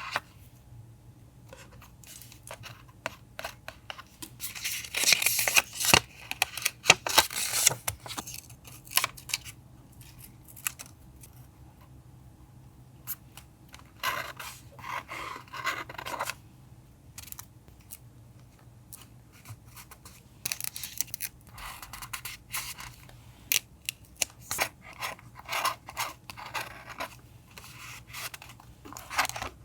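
Scissors snipping through paper, with crisp paper handling, in busy stretches of sharp clicks and rustles separated by quieter pauses.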